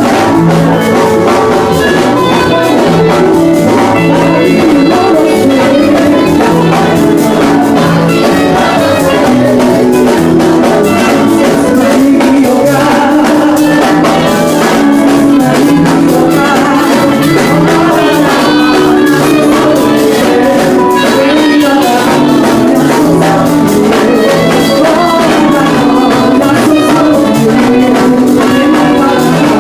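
Loud, continuous church worship music: singing over a full band with steady beating percussion.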